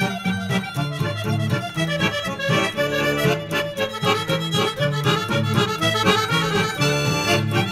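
Instrumental background music with quick notes over a repeating bass line.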